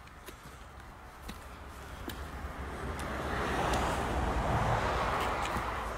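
A rushing noise with a low rumble swells over several seconds, is loudest a little past the middle, and then eases off, with a few faint clicks on top.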